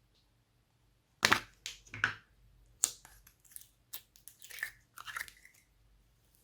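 Glossy slime being squeezed and stretched by hand, giving a run of irregular sticky crackles and clicks, loudest about a second in.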